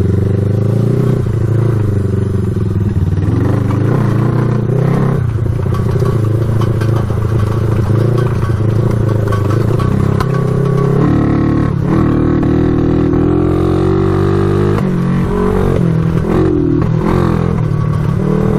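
1974 Honda CB360's parallel-twin engine running as the bike is ridden over rough ground, its pitch rising and falling with the throttle. Without its airbox and air filters the carburetors don't work right, so it won't rev out.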